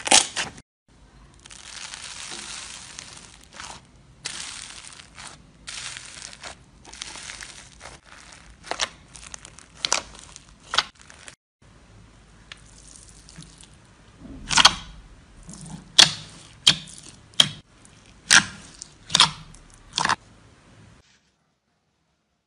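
Slime being squeezed and pressed by hand, sticky crackling and squelching in several short takes. Then comes a series of sharp pops and crunches as fingers press into pink foam-bead slime. The sound stops about a second and a half before the end.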